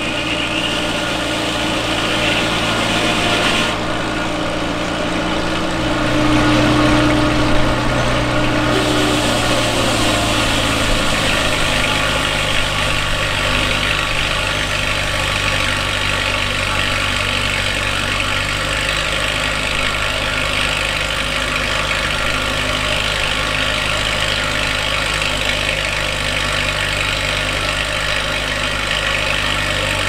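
Engine driving a Frick circular sawmill, running steadily with a constant hum; its tone grows louder for a few seconds about six seconds in, then settles again.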